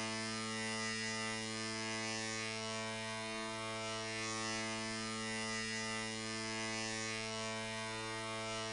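NHL arena goal horn sounding one long, steady low blast with a crisp, buzzy tone, holding a single pitch throughout.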